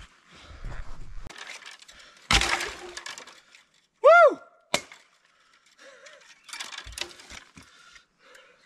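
Dead wood cracking and snapping as a fallen log and branches are cleared from a trail, with one loud crash about two and a half seconds in. About four seconds in, a short whistle-like tone rises and falls in pitch, followed by a sharp click.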